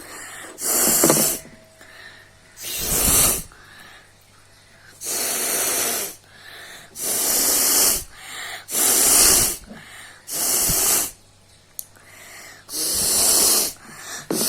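A person blowing their nose hard, again and again: about seven forceful blasts of air through the nose, each about a second long, with short pauses between.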